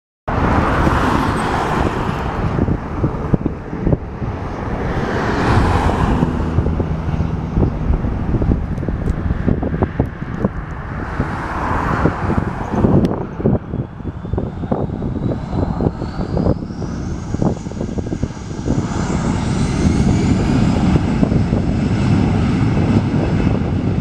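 Airbus A321-211's twin turbofan engines running as the jet moves along the runway, with a low rumble throughout. About halfway through a whine rises steadily in pitch and then holds high as the engines spool up to takeoff thrust.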